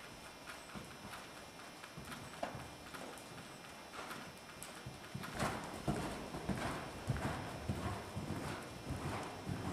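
Hanoverian mare's hoofbeats on sand arena footing: soft, even thuds at the walk, becoming louder and quicker from about five seconds in as she moves up into canter.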